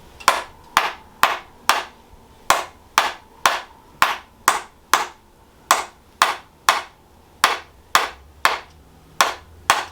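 A chiropractic adjusting instrument clicking against the lower back, about two sharp taps a second with a few brief pauses. It is tapping the sacroiliac joint and pelvic area to loosen a stiff joint.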